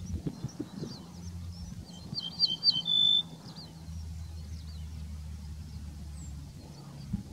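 Ortolan bunting singing: one short, loud phrase of three or four quick high notes followed by a lower, longer held note, about two seconds in. Fainter high chirps sound on and off around it.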